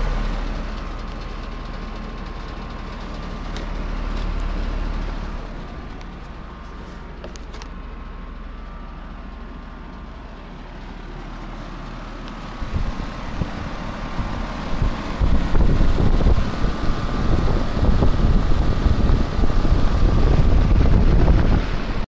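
Ruud Endeavor heat pump outdoor unit running, with a steady low hum and a faint steady tone. About halfway through the hum stops abruptly, and uneven low rumbling gusts, like air buffeting the microphone, grow louder.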